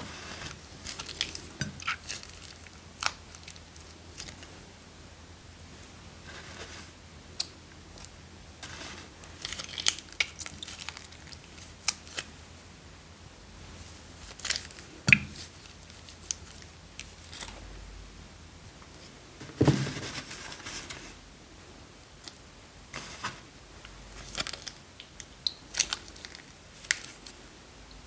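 Slime-making handling sounds: plastic bags crinkling, with scattered sharp clicks and clinks from containers and utensils being handled, and a few louder knocks spread through.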